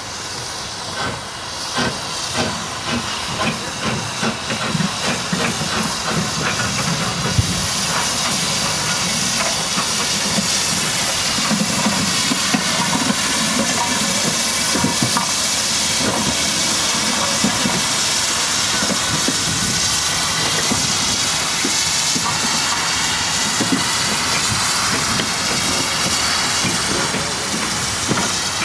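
Steam locomotive 47324, an LMS Fowler 3F 'Jinty' 0-6-0 tank engine, running slowly light engine with a loud, steady hiss of escaping steam. Irregular knocks are heard over the first several seconds, and the hiss takes over from about eight seconds in.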